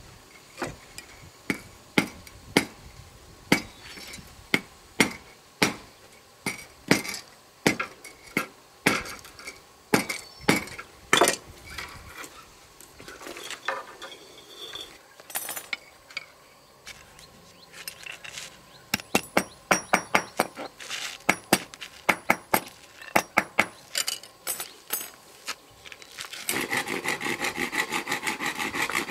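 Hammer blows on small metal pieces, sharp clinking knocks in irregular runs of about one or two a second, thinning out for a while in the middle. Near the end they give way to fast, steady rasping of a hand tool working along wood.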